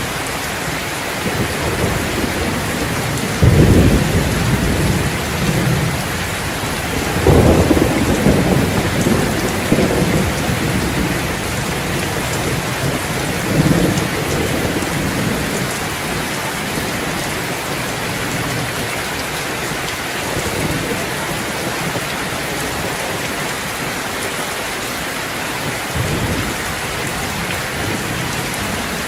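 Steady rain falling, with rolls of thunder rumbling through it: the loudest about three and a half and seven seconds in, fainter ones around thirteen seconds and near the end.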